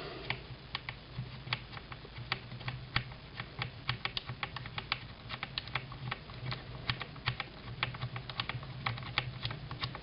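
A drill backs a screw out of a .22 rifle's action. It gives fast, irregular clicking over a faint low hum that comes and goes.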